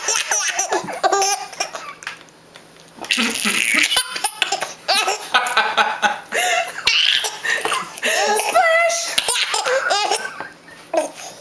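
Hard, high-pitched laughter in repeated bursts, with a brief lull about two seconds in.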